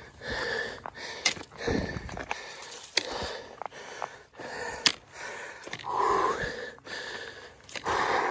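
Heavy breathing of a hiker climbing a steep dirt trail, a breath about every second and a half, with sharp footstep ticks on the dirt and stones in between.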